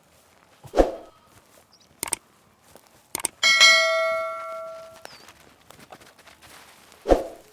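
A bell struck once, ringing with several clear overtones and dying away over about a second and a half. Two dull thumps come before and after it, with a few light clicks in between.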